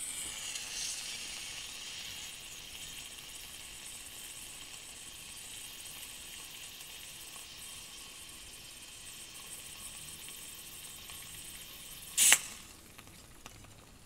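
Pressurised butane hissing steadily as an upturned refill can is pressed onto a Zippo butane lighter insert's fill valve, with some gas leaking out around the nozzle. It ends with a short, louder burst of hiss about twelve seconds in.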